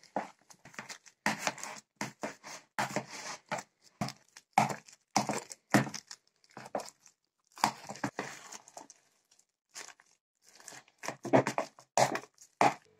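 A spoon mixing mashed potato and raw egg in a plastic container: irregular short scraping, mashing strokes, two or three a second, with a brief pause about ten seconds in.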